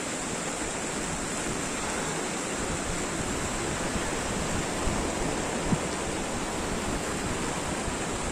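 Steady rushing of sea surf breaking along a beach.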